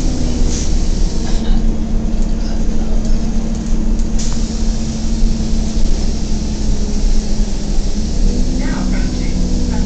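Cabin noise of a 2007 Gillig Advantage bus under way: the steady drone and hum of its Cummins ISL diesel and Allison B400R automatic transmission with low road rumble, and a sharp rattle about four seconds in.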